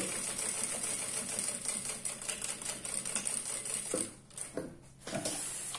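Jack industrial lockstitch sewing machine running at speed, rapid needle ticking over a steady high motor whine, as it topstitches along a zipper. The stitching stops about four seconds in, followed by a few light knocks.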